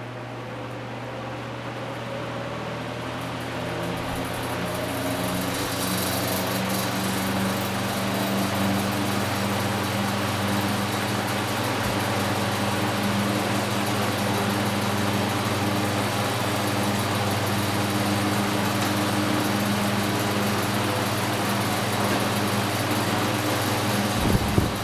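Vintage 1950s Belco 16-inch two-speed box fan on high speed, spinning up and getting louder over the first several seconds, then running steadily with a motor hum and a slight rattle, which the owner puts down to worn motor bearings or a blade set loose on the hub. A brief bump near the end.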